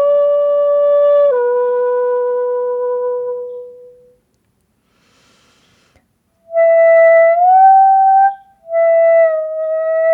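Hitoyogiri, a Japanese end-blown bamboo flute, playing a slow solo piece: a long held note that steps down a tone and fades out, a pause of about two seconds, then a note that slides upward, and another long note. The breath shakes slightly in the tone, which the player puts down to nerves.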